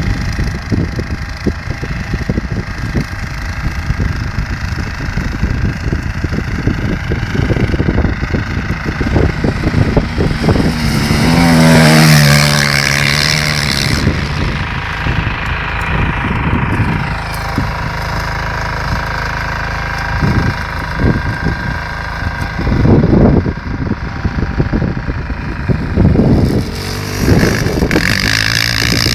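Suzuki LTR 450 sport quad's single-cylinder four-stroke engine running and revving, loudest near the middle where the engine note rises as it is driven hard. Wind buffets the microphone.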